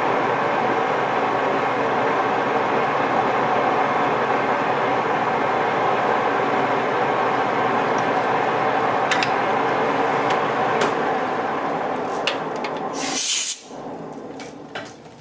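Metal lathe running steadily with its chuck spinning while a tailstock reamer cuts into a brass brake piston. About thirteen seconds in there is a brief harsh high-pitched noise, and the lathe is switched off and goes quiet.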